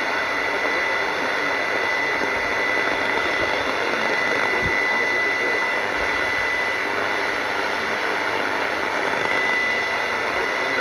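Shortwave radio receiving a jammed clandestine broadcast: dense, steady static hiss with a thin, steady high tone running through it, the signal drowned out by jamming.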